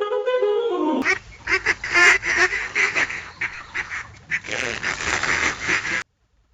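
Comical fart sound effects: a squeaky, pitched fart about a second long that bends up and down, then a long sputtering fart of rapid irregular pops that cuts off suddenly about six seconds in.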